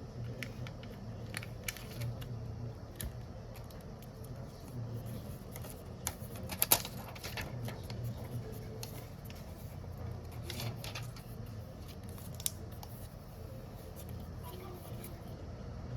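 Light clicks and taps of small parts and tools being handled on a phone repair bench, scattered irregularly, with one sharper click about halfway through, over a steady low hum.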